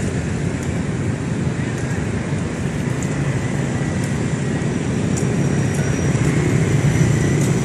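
Steady low rumble of city traffic, with no clear event standing out.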